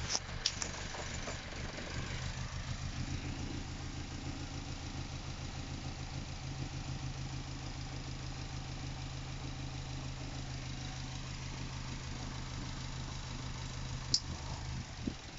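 Mazda MX-5 NC four-cylinder engine idling roughly, a steady low note with an uneven pulsing that grows stronger about two seconds in. Two short sharp clicks, one near the start and one near the end.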